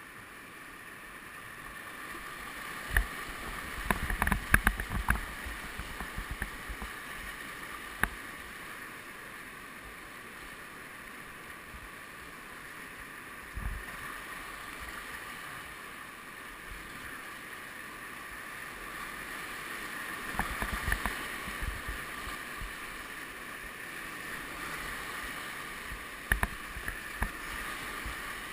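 Whitewater rapids rushing around a kayak, heard close up from a camera on the boat, with short sharp thumps and splashes from the paddling. The thumps bunch around four to five seconds in, again around twenty-one seconds, and near the end.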